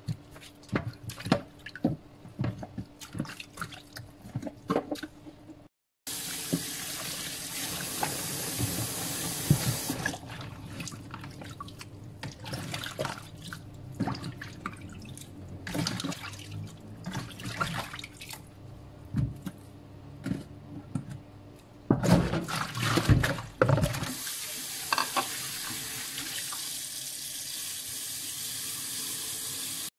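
Kitchen tap water running into a plastic bowl of raw chicken pieces in a stainless steel sink, with clatter and knocks of the chicken and bowl being handled; a loud run of knocks comes about two thirds of the way through, and the tap then runs steadily. At the start, sharp taps of a knife cutting chicken on a plastic cutting board.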